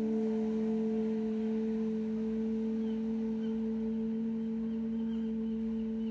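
A woman humming one long, steady low note through closed lips: the bee-breath (bhramari) humming exhale of pranayama. Faint high chirps sound behind it.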